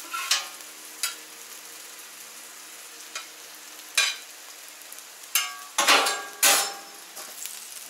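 A metal spatula scrapes and knocks on the steel cooktop of a Camp Chef FTG600 flat top griddle as food is scooped onto a plate. It makes a series of short, sharp scrapes, the two loudest about six seconds in, over a faint steady sizzle of food on the hot griddle.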